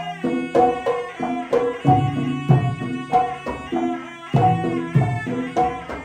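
Live wayang kulit ensemble music: hand drums and ringing pitched percussion playing a quick, repeating pattern of struck notes.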